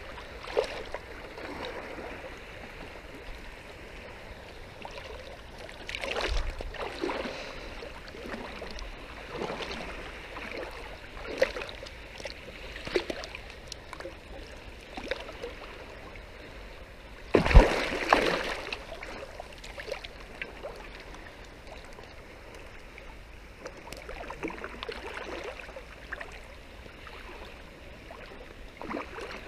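Shallow seawater sloshing and splashing in irregular surges as a set net with its float line is hauled in by hand, with one sharp, louder thump past the halfway mark.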